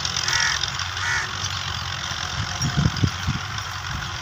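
Fiat 640 tractor engines running steadily under load while pulling ploughs. A bird calls twice in the first second or so, and a few low thumps come about two-thirds through.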